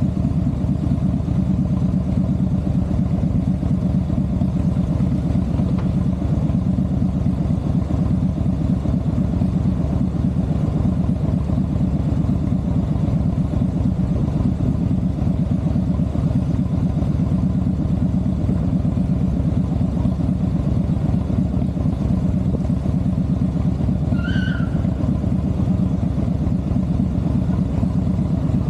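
Vehicle engine running steadily with an even low hum. A brief high chirp sounds near the end.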